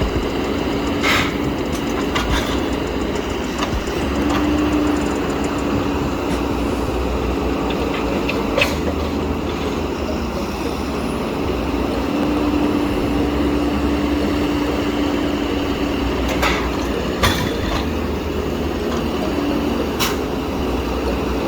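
A heavy machine running steadily with a wavering hum, and a few sharp knocks or clanks scattered through.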